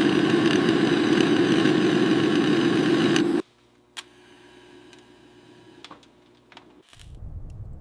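An engine runs steadily, then cuts off abruptly about three and a half seconds in, leaving a few faint clicks and a low rumble near the end.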